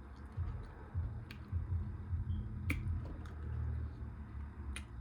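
A person chewing a mouthful of burrito close to the microphone: low, muffled chewing throughout, with a few sharp, wet mouth smacks and clicks about a second apart.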